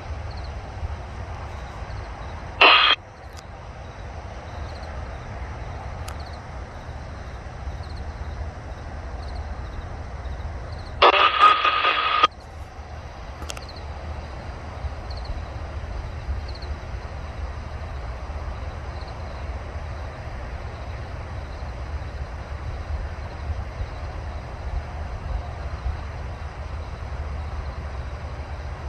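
Steady low rumble of an approaching BNSF train, slowly growing louder. It is broken by two loud, sharp-edged bursts: a short one about three seconds in and a longer one lasting over a second around eleven seconds in.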